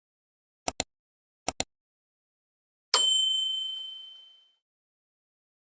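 Two quick pairs of clicks, then a single bright bell ding that rings out and fades over about a second and a half: an added click-and-bell sound effect.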